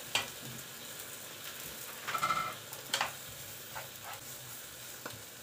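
Shallots, carrots and dried shrimp sizzling in oil in a frying pan as they are stir-fried, with a couple of sharp clicks from the wooden spatula against the pan. A brief high-pitched sound about two seconds in.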